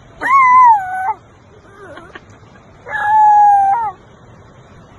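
An Australian Shepherd puppy howling twice: two high, held notes of under a second each, the second slightly lower and steadier than the first.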